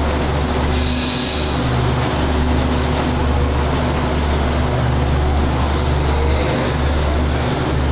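Passenger train rolling slowly alongside the platform, with a steady low engine hum and rumble from the carriages. A brief hiss comes about a second in.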